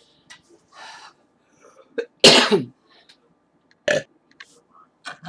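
A woman's loud belch right at the microphone, about two seconds in, lasting about half a second and falling in pitch. A shorter, sharper sound follows about four seconds in.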